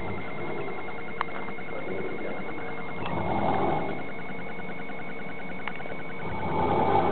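A man snoring while asleep: two loud snores about three seconds apart, each swelling and fading over about a second.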